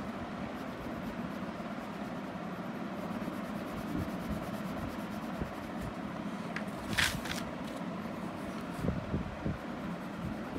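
Colour pencil scratching on paper as yellow is shaded in, over a steady background hum, with a brief sharper scrape about seven seconds in.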